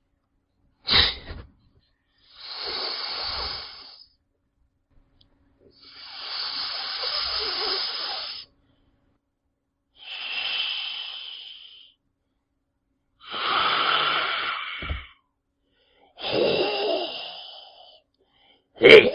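Snake hissing: a short sharp hiss about a second in, then five longer hisses of about two seconds each, separated by silent pauses, and another sharp hiss near the end.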